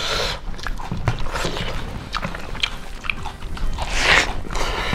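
Close-miked eating sounds: chewing and wet mouth smacks on hand-fed pork curry and rice, many short clicks in a row, with a louder mouth noise about four seconds in.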